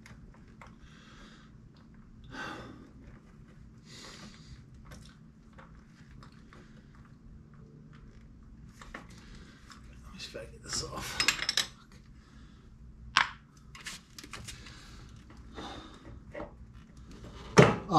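Hands working at a motorcycle's spin-on oil filter through a cloth: scattered clicks, taps and metal clinks, with a denser clatter about ten seconds in and a sharp knock near the end. The oily filter is slippery and hard to grip.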